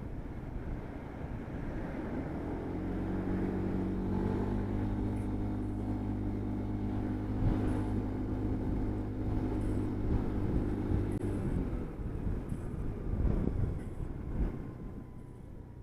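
A motor vehicle's engine hum that rises slightly in pitch a few seconds in, holds steady, then fades away about eleven seconds in, over constant low road and wind noise.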